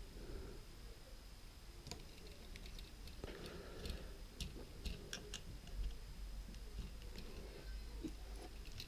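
Faint, scattered small clicks and taps of small camcorder parts and tiny screws being handled during reassembly.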